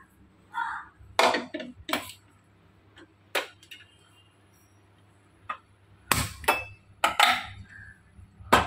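Steel kitchenware knocking and clinking: a pot and the pressure cooker handled as soaked dal is put into the cooker. Scattered separate knocks, with a quiet stretch in the middle and the heaviest clatter in the last few seconds.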